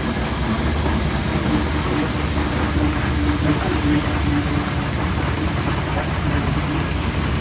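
Steam traction engine running as it travels slowly past, a steady low mechanical noise.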